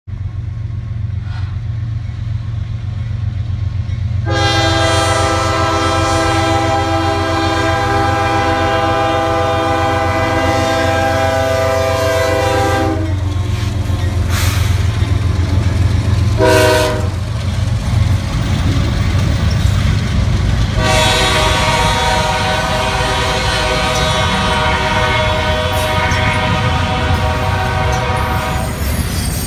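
CSX diesel locomotive horn sounding its multi-note chord for a grade crossing: a long blast beginning about four seconds in, a short blast near the middle, then another long blast held until near the end. Beneath it runs the steady low rumble of the locomotives and rolling train.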